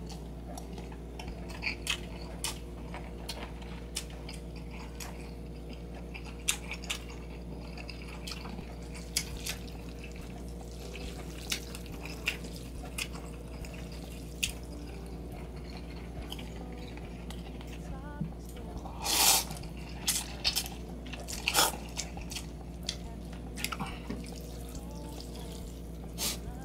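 Close-up eating sounds of a bowl of instant noodle soup with vegetables: scattered wet clicks and smacks of chewing over a steady low hum. A louder, longer mouth sound about two-thirds of the way in stands out, with a few more shortly after.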